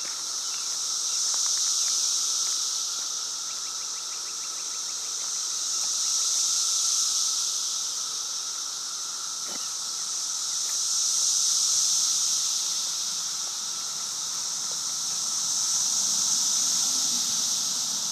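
Dense chorus of periodical cicadas, a continuous high-pitched buzzing drone that swells and fades in slow waves about every five seconds.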